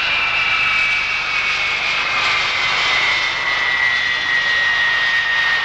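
NATO Boeing E-3A Sentry's four TF33 turbofan engines running loud as the aircraft rolls past on the runway: a steady jet roar with a high whine that slowly falls in pitch as it goes by.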